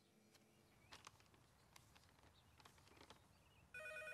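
Near silence with a few faint taps, then near the end a telephone starts ringing with a steady electronic trill.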